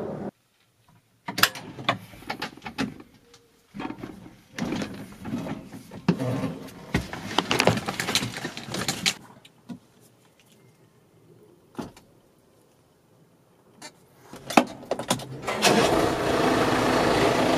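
Clicks, knocks and rattles inside a tractor cab as someone gets in and handles the door and fittings, thinning to a few single ticks. Near the end a steady noise rises as the tractor's engine starts.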